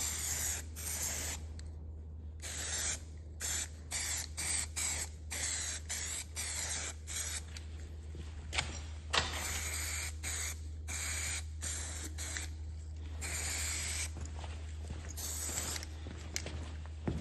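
Aerosol spray can being sprayed in a run of short hisses, with a few longer ones, coating a rusty part with rust converter or Hammerite paint.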